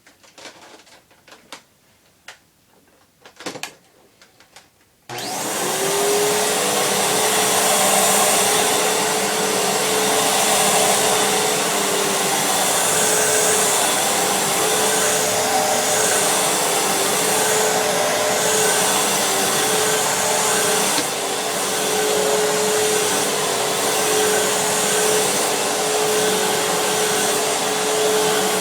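A few light clicks and knocks, then about five seconds in a Fantom Fury upright vacuum cleaner switches on: its motor spins up quickly and runs steadily with a high hum and the hiss of rushing air.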